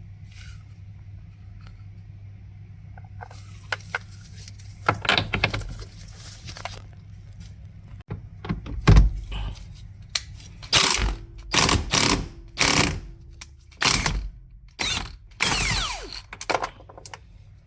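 A socket ratchet working in a run of short strokes, about one a second, as the 22 mm steering-wheel retaining nut is undone, after a few scattered metallic clicks of tool handling.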